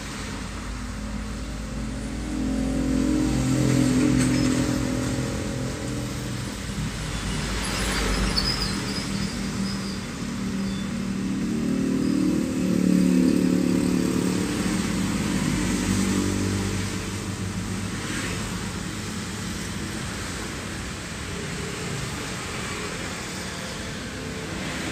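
Road traffic passing close by: car, van and motorcycle engines with tyre noise. The engine sound swells as vehicles pass, loudest about 4 and 13 seconds in.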